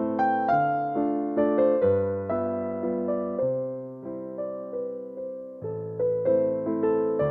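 Background music: a gentle piano piece, notes struck one after another over held bass notes, each note fading after it is played.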